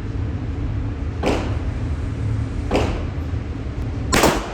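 Three gunshots at a shooting range, about a second and a half apart, the last one the loudest, each with a short ring after it, over a steady low rumble.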